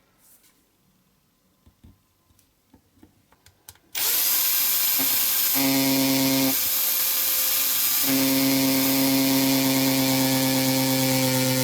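A few faint handling clicks, then about four seconds in a small electric power tool starts suddenly and runs steadily with a high whine, its tone shifting for a moment midway as if the load changed.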